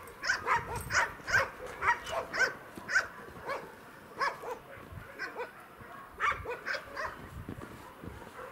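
A dog barking repeatedly, about two barks a second at first, thinning out and growing fainter after about four seconds.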